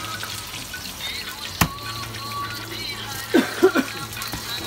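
Hot oil frying in a deep iron kadhai over a gas burner, a steady bubbling sizzle. A single sharp knock comes about one and a half seconds in, and a few short, loud falling squeaks about three and a half seconds in.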